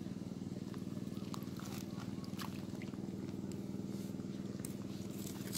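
Steady low drone of a motor running at an even speed, with a fine rapid pulse. Scattered light clicks and small water splashes on top as a wire-mesh fish trap is moved in shallow water.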